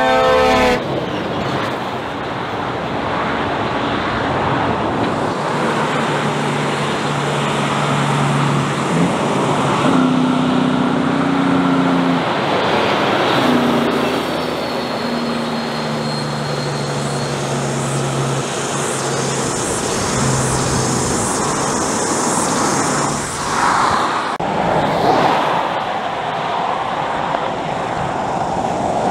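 Heavy diesel trucks driving past one after another: engine drone and tyre roar, the engine note stepping up and down in pitch. An air horn toot trails off in the first second.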